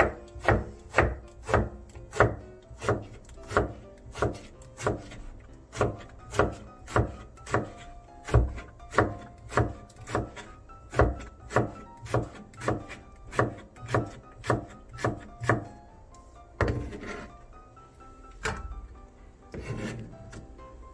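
Kitchen knife slicing eggplant on a plastic cutting board, the blade knocking on the board about twice a second in an even rhythm. Near the end the chopping stops and there are a few longer scraping, rustling sounds.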